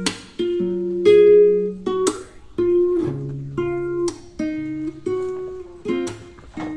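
Background music: plucked acoustic guitar playing a steady chord pattern, notes struck about every half second.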